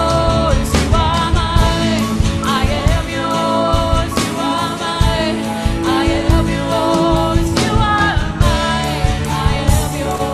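Worship band playing a gospel-style Christian song with sung vocals over a steady drum beat.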